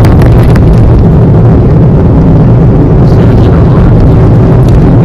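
Loud, distorted rumble of wind buffeting the microphone on a moving vehicle, overloading the recording.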